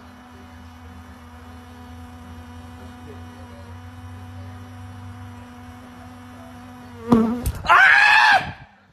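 A bee hovering, its wings giving a steady low buzz for about seven seconds. About seven seconds in it is broken by a sudden loud clatter and a shrill, wavering cry, the loudest sound, which stops just before the end.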